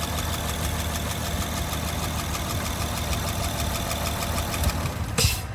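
Honda car engine idling steadily, then shut off near the end with a short rush of noise. It runs because the high-resistance battery terminal causing a severe voltage drop has been bridged.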